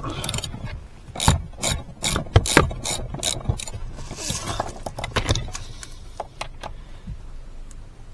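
Ratchet wrench clicking in two bunches of quick strokes as a Torx seat-mounting bolt is worked loose.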